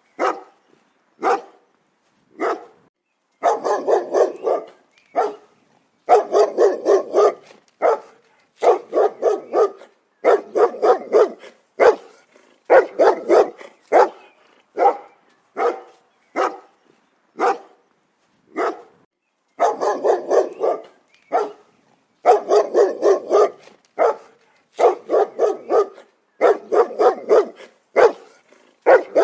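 A dog barking loudly and repeatedly, in rapid runs of several barks at a time with short pauses between runs and some single barks.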